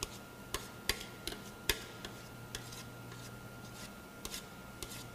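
Scattered light clicks and taps of kitchen utensils against dishes, about a dozen in all and irregularly spaced, over a faint steady hum.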